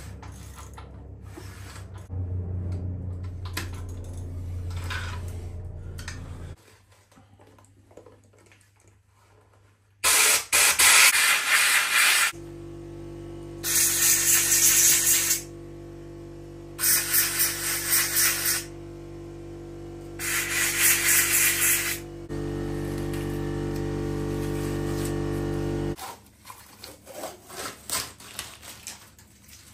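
Compressed air blown into the engine block's head bolt holes in four hissing bursts of a second or two each, clearing them out before the head studs go in. A low steady hum runs underneath.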